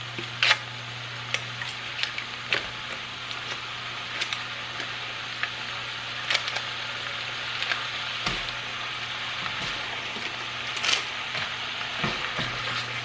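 Minced garlic frying in melted butter in a stainless steel pan: a steady sizzling hiss with scattered sharp pops and crackles.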